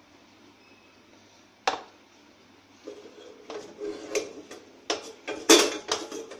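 A wooden spatula scraping and knocking against a kadhai as a small lump of the sweet mixture is stirred around the pan. A single sharp knock comes about a second and a half in, and the scraping follows in a run of short strokes from about halfway through.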